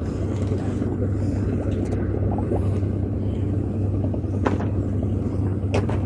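Steady low engine hum, with two faint short clicks near the end.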